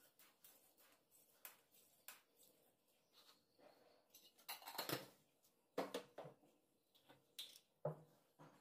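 Faint kitchen handling sounds: a few light clicks and knocks around a steel saucepan as sugar is added, with a brief rustle about halfway through.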